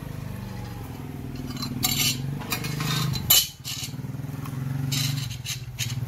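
Galvanized steel channel pieces clinking and scraping against each other and the concrete floor as they are fitted into a rectangular frame: several sharp metallic knocks, the loudest about three seconds in. An engine hums steadily underneath.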